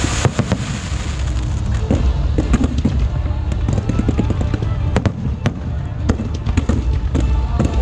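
Aerial fireworks going off: many sharp bangs and crackles in quick succession over a steady low rumble.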